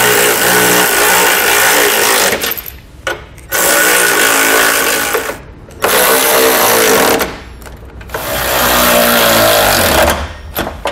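Cordless electric ratchet with a 13 mm socket running down lock nuts on running-board mounting brackets, in four whirring, rattling runs of one to two seconds each with short pauses between as it moves from nut to nut.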